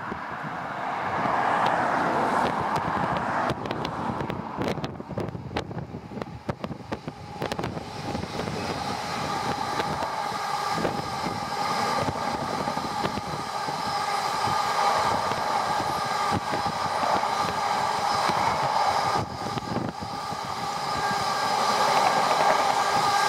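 Freight train passing at speed: a steady rush of wagon wheels on the rails that swells quickly in the first two seconds. A spell of sharp clicks and rattles follows, then a steady whine from the wheels that builds again near the end.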